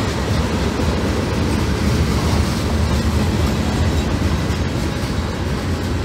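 Freight train's tank cars and hopper cars rolling past on the rails: a steady rumble with wheel clatter.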